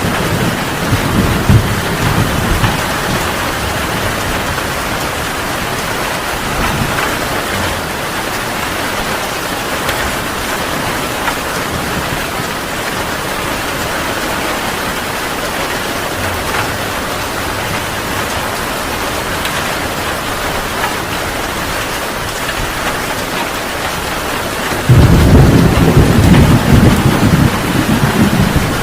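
Heavy rain falling steadily, with low thunder rumbling in the first few seconds and a much louder roll of thunder breaking in suddenly near the end.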